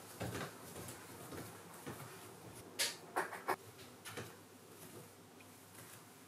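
Soft barefoot footsteps on a wooden floor, with three sharp clicks close together about three seconds in.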